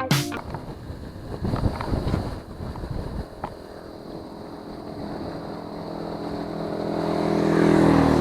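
Motor vehicle engine running on the road, steady at first and growing louder over the last few seconds, with uneven road and wind noise early on.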